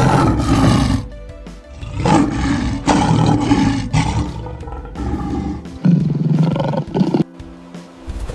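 Tiger roaring in three bouts over steady background music, the middle roar the longest.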